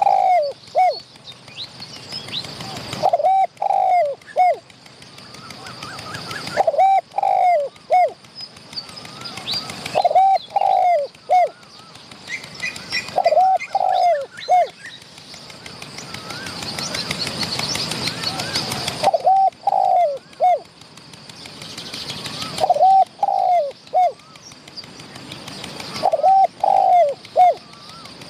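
Spotted dove cooing, a three- or four-note phrase repeated about every three and a half seconds, with one longer pause in the middle while a rising rush of noise swells and fades. Small birds chirp faintly at a higher pitch.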